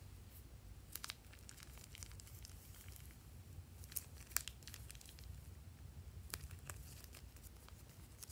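Faint crinkling of a plastic piping bag being squeezed and crumpled, with soft sticky crackles from the slime. A few sharper clicks stand out about a second in and around four seconds.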